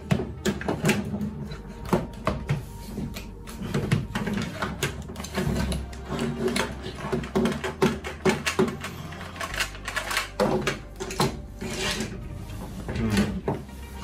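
Plastic parts of a cordless stick vacuum's turbo brush head being handled and fitted together: irregular clicks, knocks and rattles of hard plastic.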